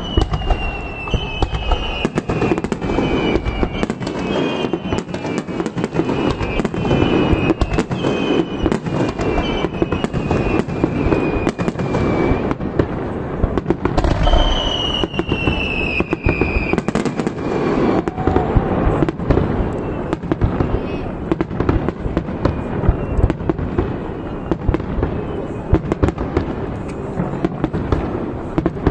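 Fireworks display: a dense, continuous run of bangs and crackles. Several high whistles falling in pitch come in the first half.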